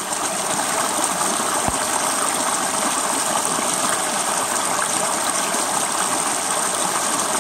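Small woodland stream rushing steadily as it spills over moss-covered rocks in a little cascade.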